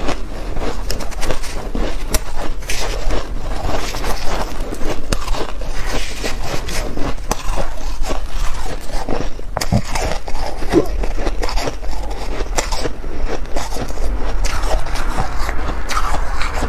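Shaved ice being crunched and chewed in a steady stream of crackles, with a metal spoon scraping through the ice in a metal pan.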